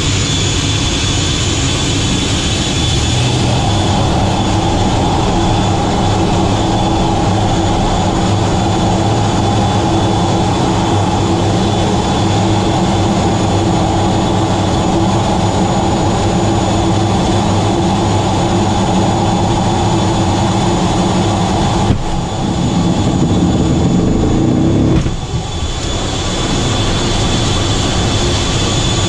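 Fighter jet's engines running at high power, heard inside the cockpit as a steady rumble with a high whine. About three-quarters of the way through, a sudden jolt marks the catapult launch. The noise then swells for about three seconds and drops off abruptly, and the steady engine noise carries on.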